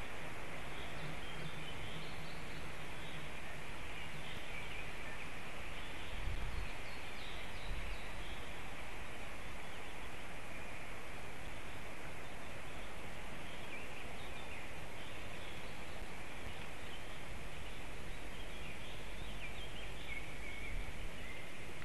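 Steady forest-background hiss from an outdoor nest camera, with faint scattered bird calls and brief low rumbles about six seconds in and near the end.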